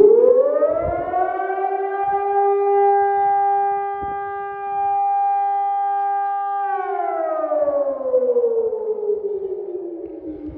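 Civil defence warning siren sounding during a scheduled test of the public warning system. Its pitch rises, holds one steady tone for about five seconds, then slowly winds down.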